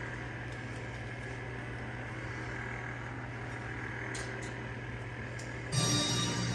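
Steady low hum with a couple of faint ticks, then background music starts near the end.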